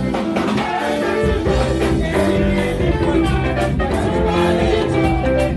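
Upbeat live band music with singing: two women singing into microphones over a band with a drum kit.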